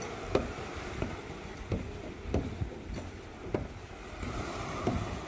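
Footsteps going down wooden stairs, a knock about every two-thirds of a second, over a steady wash of wind and waves.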